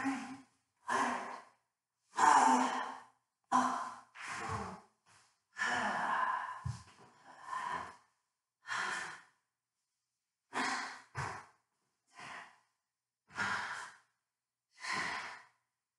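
A woman's voice gasping and sighing heavily, some breaths with a voiced groan in them. The breaths come about one a second, each a second or less, with short silences between them and one longer pause a little past the middle.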